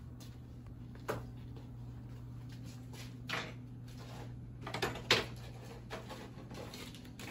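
A few short clicks and rustles of objects being handled, over a steady low hum.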